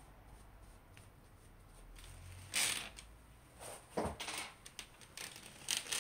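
Small objects being handled: several short rustling, clicking bursts, with a brief creak about four seconds in.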